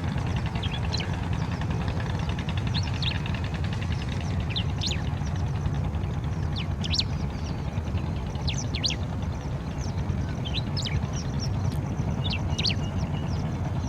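Striated grassbird calling: short, sharp chirps repeated irregularly every second or so, over a steady low rumble.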